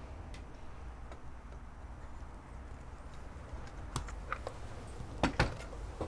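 A few light clicks and knocks of small objects handled on a wooden workbench, the loudest a quick pair about five seconds in, over a low steady hum.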